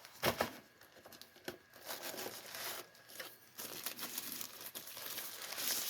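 Packaging crinkling and rustling as a small boxed headphone amplifier is unwrapped by hand. A couple of sharp clicks come in the first second and a half, and the rustling grows louder toward the end.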